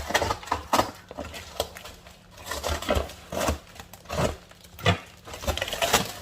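Packaging and supplies being handled during unboxing: irregular rustling with many short taps and knocks.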